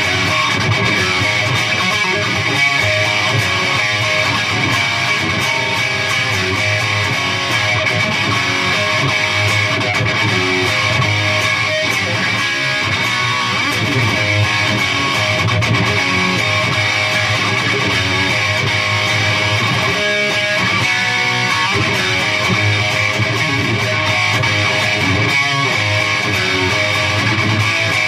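Electric guitar played through a Peavey Triple XXX II tube amp head and two-speaker cabinet: continuous rock riffing with a crunchy overdriven tone.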